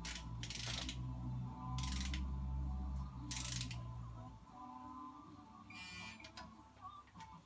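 Ratchet wrench clicking in a few short strokes, then a quick run of fine clicks, while the water pump bolts of a Chrysler 3.5 V6 are tightened. A low hum underneath stops about halfway through.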